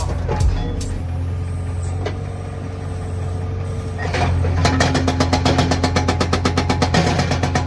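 Excavator diesel engine running steadily. About four and a half seconds in, a hydraulic breaker starts hammering with rapid, evenly spaced blows.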